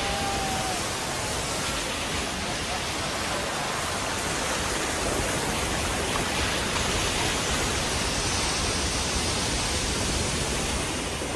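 Ocean surf breaking and churning over coastal rocks: a steady, dense rush of white water.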